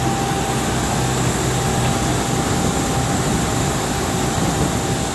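Steady aircraft noise on an airport ramp: a constant rumble with a low hum and a thin, unchanging whine.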